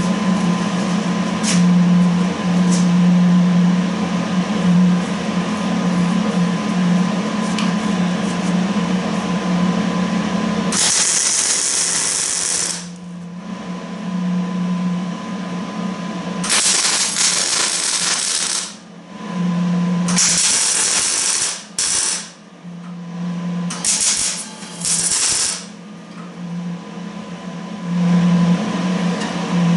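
Welder tack-welding steel brackets to a trommel's drive sprocket: a steady hum, then from about eleven seconds in a series of short crackling weld bursts, each one to two seconds long, with pauses between them.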